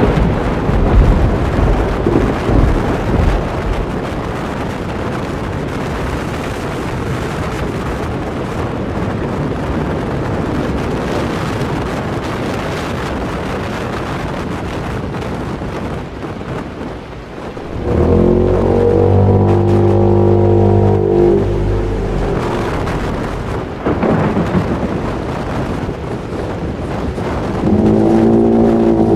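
Hurricane wind blowing as a loud, steady rushing noise, with a low rumble in the first few seconds. About eighteen seconds in, a deep droning howl with overtones rises over it for some four seconds, and it starts again near the end.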